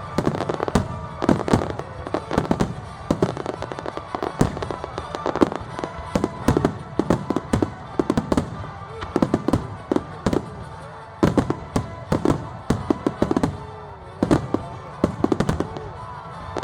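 Finale barrage of aerial firework shells bursting, many sharp reports in quick succession with short pitched glides among them.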